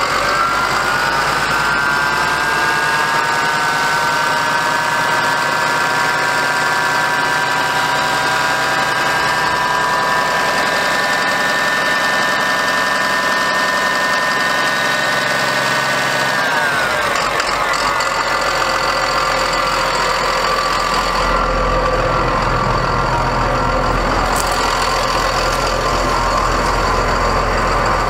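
The Cummins ISB 5.9 L diesel of a 2007 Ford F650 idling steadily, with a whine that holds one pitch and then glides down about two-thirds of the way through.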